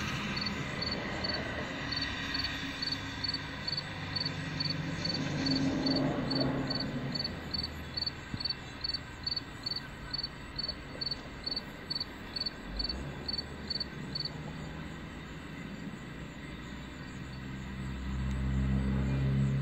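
A cricket chirping in an even rhythm, about three chirps a second, which stops about two-thirds of the way through. Under it runs a low engine rumble that swells again near the end.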